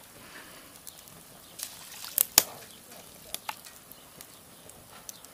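Firewood burning in a steel brazier, crackling with scattered sharp pops, two loud ones in quick succession about two seconds in, over a faint steady hiss of light wind on the microphone.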